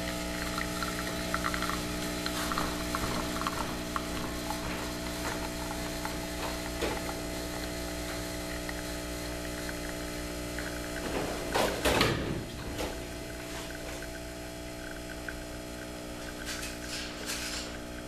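Lavazza Espresso Point espresso machine's pump running with a steady hum while a test shot brews after a button board replacement, with light crackle over it. A louder burst of noise comes about twelve seconds in.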